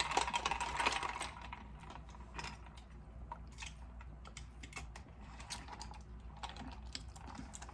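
Close-miked chewing and mouth smacking: a run of small wet clicks and crunches, thickest in the first second or so, then scattered clicks.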